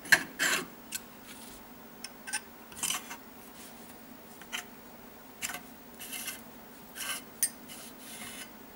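Steel parts of a Weihrauch HW95-family spring-piston air rifle being taken apart by hand: sharp metal clicks and short scrapes, the loudest just after the start. Near the end the piston slides out of the compression tube with a scrape.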